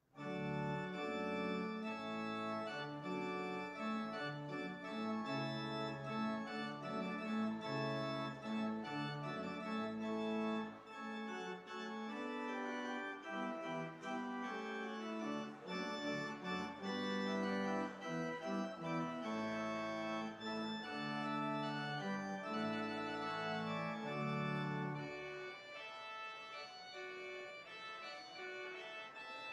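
Organ music that starts suddenly, with held chords over low bass notes; near the end the bass drops out and the playing grows softer.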